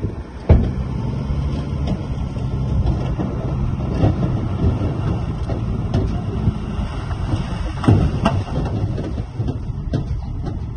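Heavy diesel construction machine engine running steadily under load, with several sharp metallic clanks and knocks.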